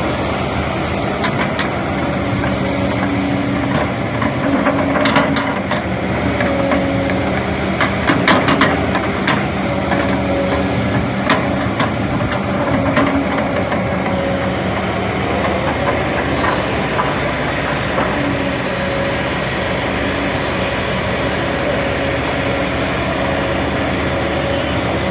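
Kobelco SK220 hydraulic excavator's diesel engine running steadily, with a series of sharp clanks and knocks during the first half.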